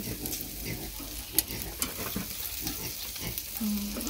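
Chunks of meat sizzling on a wire grill over hot charcoal, fat spitting and crackling with scattered sharp pops.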